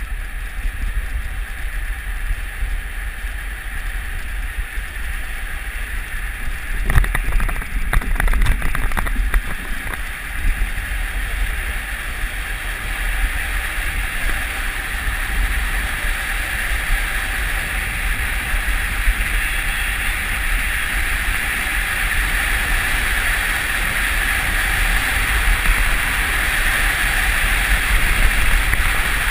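Luge sled runners hissing over the ice of the track at speed, with wind rushing over the microphone. A rattling run of knocks comes about seven to nine seconds in, and the hiss grows louder toward the end.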